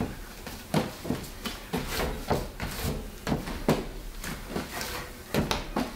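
Bread dough being handled by hand on a kitchen bench: irregular soft thumps and knocks, two or three a second.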